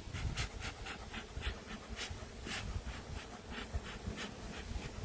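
Honeybees buzzing around an open hive, with wind rumbling on the microphone and a quick run of short hissing bursts, about four a second.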